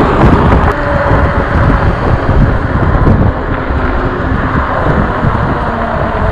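Loud wind buffeting the microphone of a camera on a moving e-bike, with road traffic rumbling underneath.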